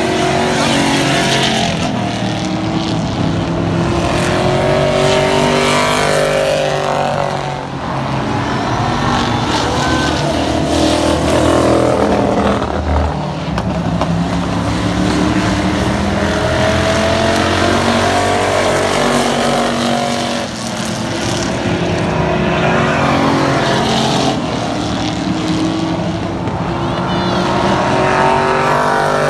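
Race car engines running at speed around a short oval track. The engine note rises and falls repeatedly as the cars come past and move away.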